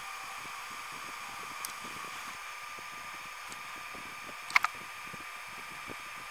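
Steady background hum with a faint fixed whine, broken by a small click about a second and a half in and a sharp double click about four and a half seconds in.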